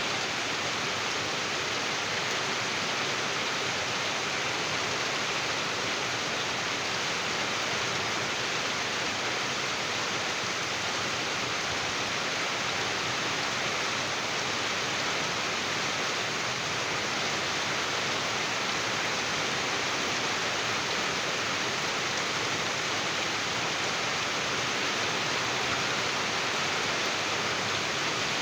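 Rain falling steadily, an even hiss with no single drops or other sounds standing out.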